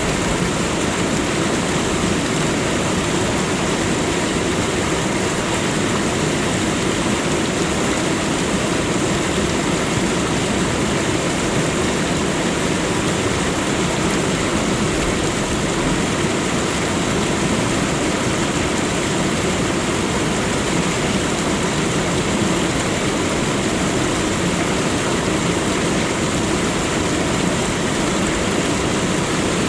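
Waterfall: water falling and splashing in a steady, even rush of noise.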